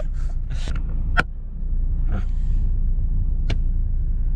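Steady low road and engine rumble inside a moving car's cabin, with two short sharp clicks, about a second in and near the end.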